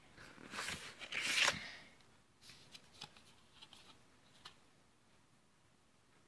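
Rustling and scraping of the cardboard phone box and its packaging being handled, loudest in the first second and a half. A few light taps and clicks follow, then it falls quiet.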